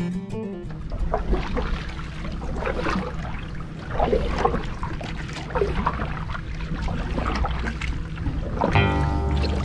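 Paddle strokes from an OC1 outrigger canoe in calm lake water: splashes and trickling about once a second over a low steady rumble. Guitar music fades out just after the start and comes back near the end.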